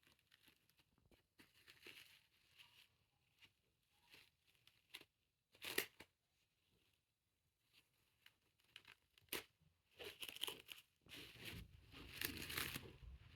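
Plastic cling film being handled and torn, in short scattered crinkles and rips, with one louder tear about six seconds in. The crinkling grows denser and more continuous over the last few seconds as the film is worked around the poultice.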